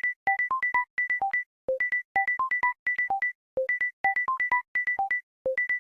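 A Samsung Galaxy S23 ringtone: a short synthesized phrase of quick electronic notes, one low note followed by a run of higher ones. The phrase loops about every two seconds.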